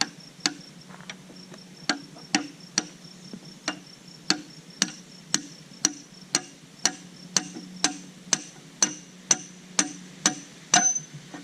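Hammer blows on a steel lineup tool, about two a second and some twenty strikes with a metallic ring, driving out a backhoe bucket pin. Crickets chirp steadily behind.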